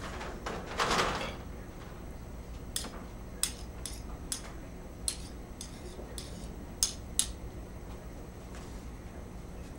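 Dishes and utensils being handled on a kitchen counter: a brief scrape, then a series of light, sharp clinks and taps, about a dozen over a few seconds, over a steady low background hum.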